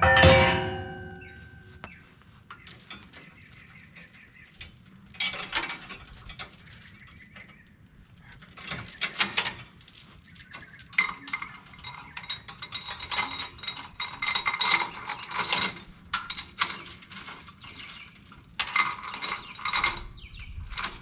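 Heavy steel log chain clinking and rattling in bursts while a lever chain binder is worked to bind down a load of logs on a truck bed. It opens with one loud metal clang that rings for about two seconds.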